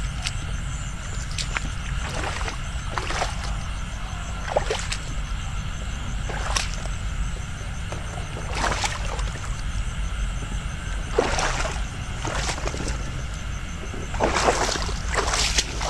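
A person walking through a wet rice field: irregular swishing steps, one every second or two and closer together near the end, over a steady low rumble.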